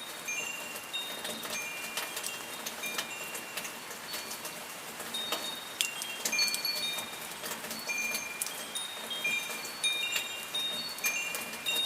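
Steady rain hiss with scattered drip ticks, and high chimes ringing at random in overlapping clusters of notes.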